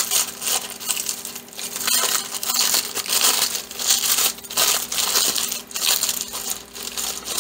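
Tissue paper being crinkled and crumpled in the hands while it is unwrapped, an irregular run of crackling rustles, done on purpose to make a crinkling sound.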